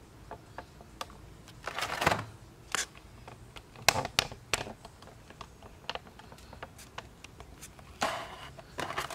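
Clear plastic blister tray of a boxed model airliner being handled: scattered clicks and taps of thin plastic with short crinkles, and a longer crinkling rustle near the end.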